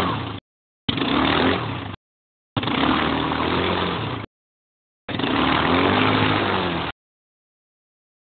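Four-wheel-drive ATV engine revving up and down as the quad churns through deep mud. The sound breaks off abruptly into dead silence several times, and is silent for the last second and a half.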